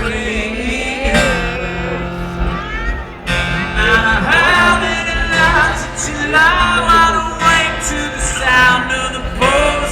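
Live acoustic rock performance: a man singing a slow melody over acoustic guitar.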